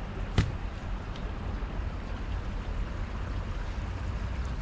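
Freshly caught tilapia thrashing after being laid out: one sharp slap about half a second in, then a few fainter taps, over a steady background hiss.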